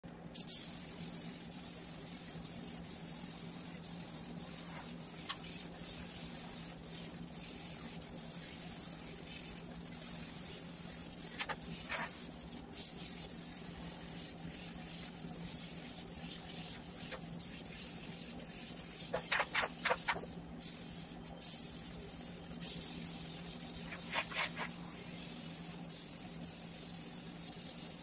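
Airbrush spraying acrylic paint: a steady hiss of compressed air that cuts out briefly a few times as the trigger is let go, over a low steady hum. A few short pitched squeaks come through in the second half.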